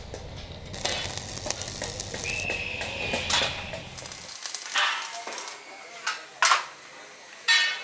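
Electric arc welding on steel tubing: the arc crackles and sizzles, breaking into several short separate bursts in the second half.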